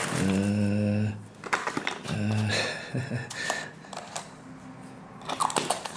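A person's low, steady hum held for about a second, then a shorter one, among scattered clicks and taps from handling things at a table.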